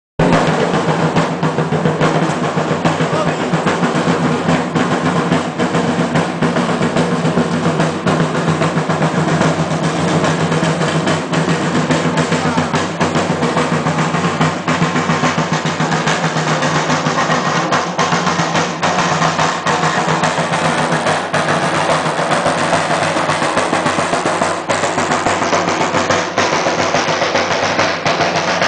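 Snare drums beating a fast, continuous roll-like rhythm.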